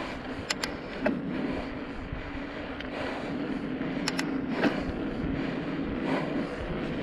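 Steady road and wind noise of a ride along a paved road, with a constant low hum. Several sharp clicks or rattles come through, about half a second in, at one second, and twice around four seconds in.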